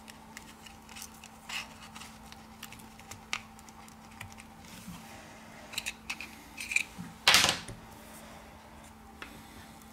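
Thin iSesamo opening tool prying and scraping along the glued edge of a broken smartphone screen, with scattered small clicks and ticks. About seven seconds in there is one louder, longer scrape as the screen is worked free of its adhesive.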